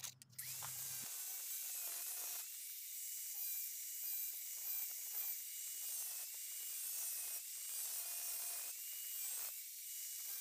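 Electric angle grinder with a small cutting disc running at speed and cutting into a PVC strip, a steady high whir with a whine that wavers as the disc bites. It starts just after the beginning.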